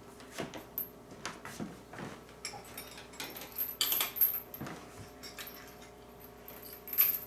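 Metal chains and hooks of a patient lift's sling clinking and jangling in irregular clicks as the spreader bar is handled, loudest about four seconds in and again near the end.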